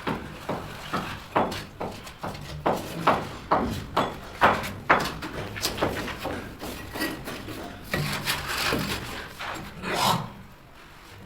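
A run of irregular knocks and taps, about one to two a second, with a quieter stretch near the end.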